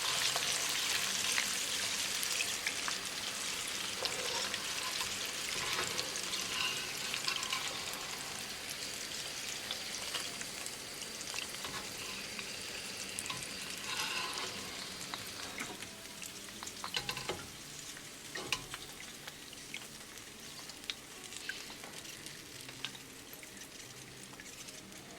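Battered chicken pieces deep-frying in hot vegetable oil: a dense crackling sizzle that slowly dies down, with scattered light clicks and taps.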